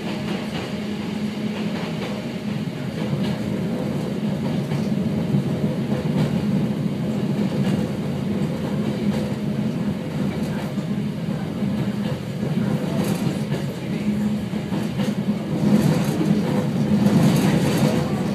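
Hakone Tozan Railway electric train running along the track, heard from the driver's cab: a steady hum over rolling noise, with the clatter of wheels on the rails, getting louder near the end.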